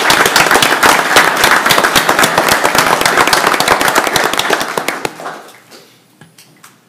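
A roomful of people applauding: dense, fast clapping that dies away about five seconds in, followed by a few last scattered claps.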